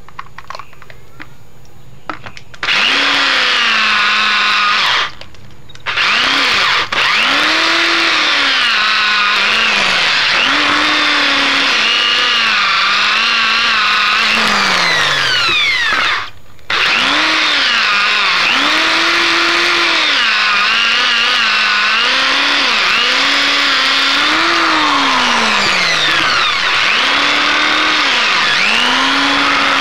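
Corded electric drill with a grinding stone bit grinding out a hole in a coconut shell, its whine rising and falling in pitch as the speed changes. It starts a few seconds in and cuts out briefly twice.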